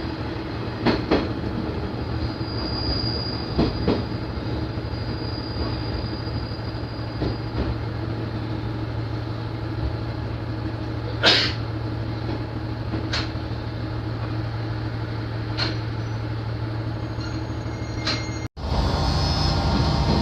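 Diesel railcar's engine droning steadily, heard from inside the car, with a few short metallic clanks, the loudest about 11 seconds in. The sound cuts out abruptly near the end and comes back louder.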